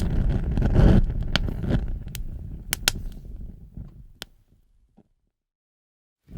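Fire burning with a deep rumble and sharp, scattered crackles, dying away over about four seconds.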